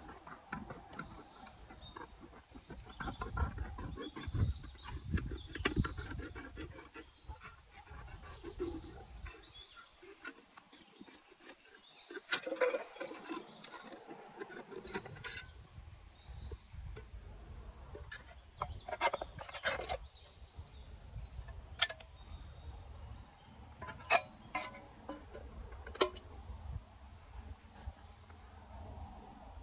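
Scattered sharp snaps and knocks with rustling, from hands working reeds and branches during shelter building, over a low wind rumble that drops out for a few seconds midway.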